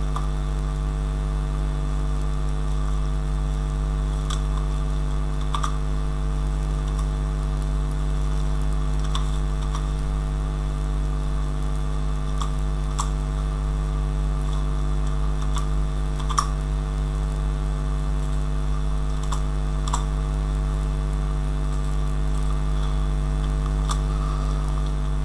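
Steady electrical mains hum, fairly loud, with occasional single computer keyboard key clicks every second or few as code is typed.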